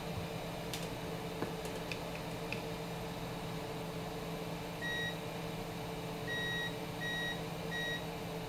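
Digital multimeter in continuity-test mode beeping as its probes touch the board: four short beeps from about five seconds in, with a fifth starting right at the end. The beep signals continuity, an electrical connection between the probed points.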